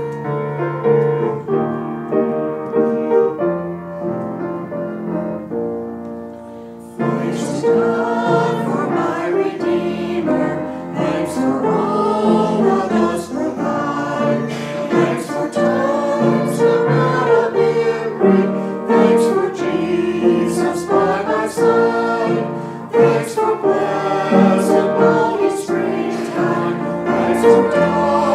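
Piano playing a hymn-like introduction, joined about seven seconds in by a group of singers in chorus, who carry on singing over the piano accompaniment.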